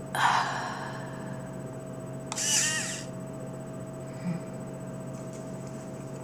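Small hobby servo motors on a pair of glasses whirring in two short bursts, about a quarter second in and again about two and a half seconds in, as they move fabric curtains over the wearer's eyes.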